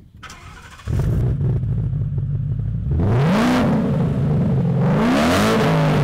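Ford Mustang GT's 5.0-litre V8, with headers, a sports cat and a 3-inch valved exhaust, fires up about a second in and idles. It is then revved twice, each rev rising and falling, with the exhaust flap closed.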